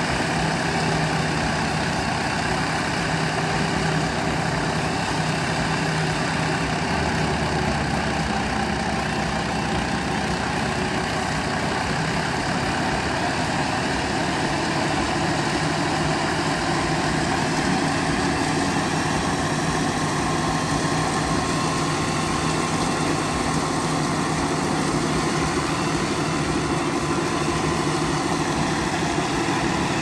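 Tractor engine running steadily, driving a wheat thresher through its shaft as wheat sheaves are fed in.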